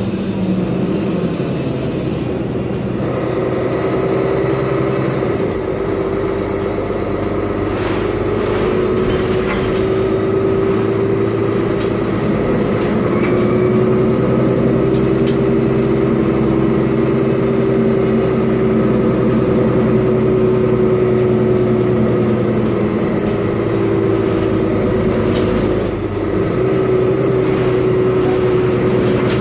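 Mercedes-Benz Conecto G articulated city bus under way: its OM457LA straight-six diesel engine running, with a steady whine that slowly rises and falls, the differential whine the recording sets out to capture. The engine pitch steps down a few times, around three and five seconds in and again near the end.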